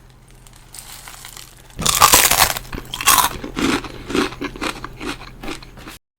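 A bite into crispy garlic fried chicken, with a loud crunch about two seconds in, followed by steady crunchy chewing at about two chews a second. The sound cuts off suddenly just before the end.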